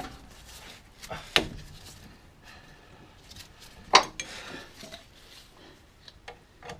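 Metal tools clinking and knocking against the front brake caliper while its second guide pin is cracked loose with a 7 mm Allen-key tool. There are light scattered clicks and two sharp clanks, one about a second and a half in and a louder one about four seconds in.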